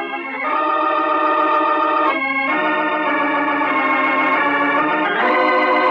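Organ music playing slow, sustained chords that change a few times, serving as a radio program's opening theme.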